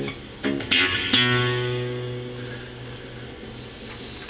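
Acoustic guitar: a few sharp, hard strums in the first second or so, then a chord left ringing and slowly dying away, with a new strum right at the end.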